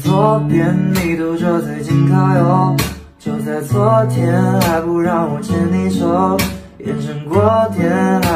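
Background music: acoustic guitar strumming under a wavering melody line, in phrases with brief pauses.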